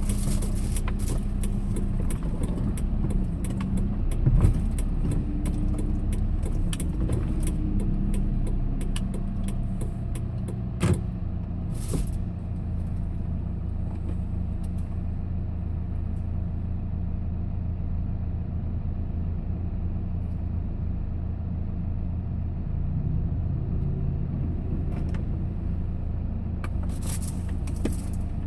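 Steady engine and road noise inside a moving vehicle's cabin. Loose items rattle and click now and then, with a bump about four seconds in and sharp clicks near the middle and near the end.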